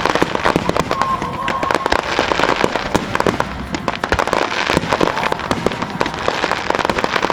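Ground fireworks going off in a dense, continuous barrage of rapid crackling pops.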